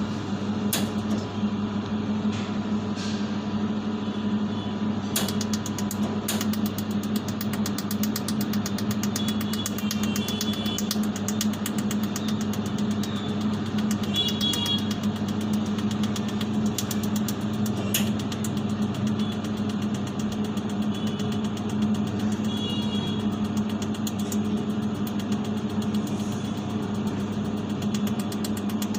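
Jewellery laser welding machine running with a steady low electrical hum. From about five seconds in come faint, rapid, evenly spaced ticks and a few sharper clicks.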